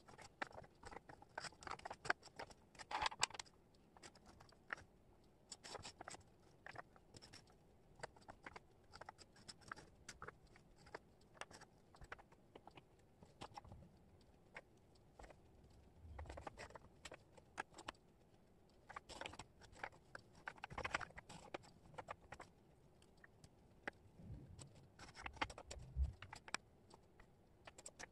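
Small wooden jigsaw pieces being picked up, shuffled and set down on a cork board: a faint, irregular scatter of light clicks and taps, with busier clusters now and then.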